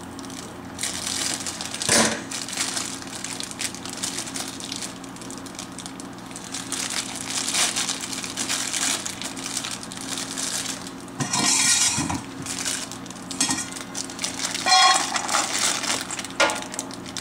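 Kitchen handling noises as dog food is prepared on the counter: irregular rustling, crinkling and light clinks and knocks over a steady low hum, with a short squeak about fifteen seconds in.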